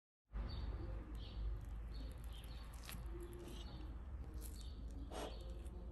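Birds chirping in short repeated calls over a steady low hum, with a single sharp click about three seconds in.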